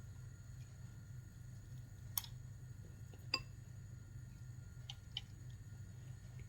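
Quiet kitchen handling: a few light clicks and taps over a low steady hum.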